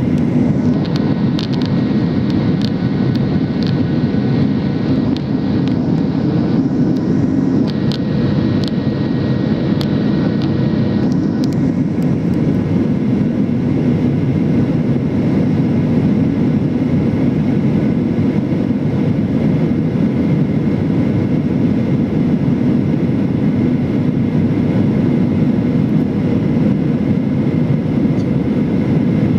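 Steady cabin roar of a Boeing 737-800 airliner in flight during the descent to land: CFM56 engine noise and rushing airflow heard through the window seat. A few faint clicks come in the first twelve seconds or so.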